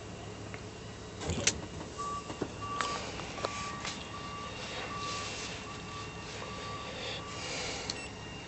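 Short electronic beeps at one pitch repeating about one and a half times a second for about five seconds, over the low steady hum of the minivan idling. A sharp click comes about a second in, before the beeping starts.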